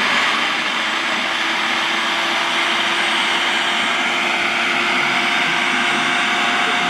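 Food processor running steadily, its blade churning frozen watermelon chunks and water into a slushy, a dense whir with a faint steady motor hum underneath.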